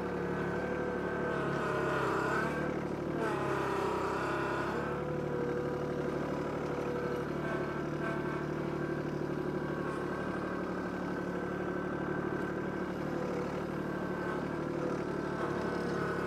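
Kubota B2261 compact tractor's three-cylinder diesel engine running steadily under load while it works the front loader and ripper blade through stump roots. The engine note wavers in pitch between about two and five seconds in, then settles.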